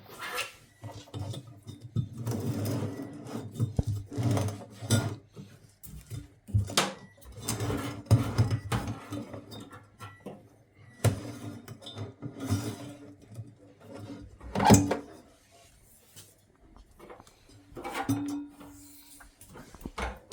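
Irregular knocks, clatter and thuds of something being handled and pulled out, with the loudest knock about three-quarters of the way through.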